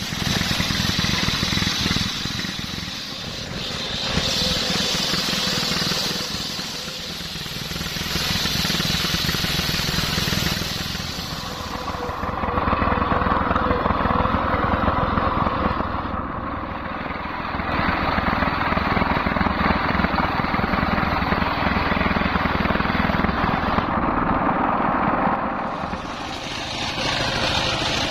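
Stationary single-cylinder diesel engine running steadily as it drives a large circular sawmill blade ripping coconut-palm logs. The saw noise swells and eases every few seconds as the blade works through the wood.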